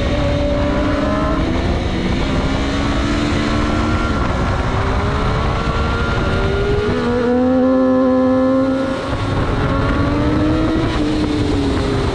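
600cc racing sportbike engine at racing speed, its pitch climbing and falling with throttle and gear changes over a steady rush of wind. It holds high and steady for a second or so past the middle, dips briefly, then climbs again.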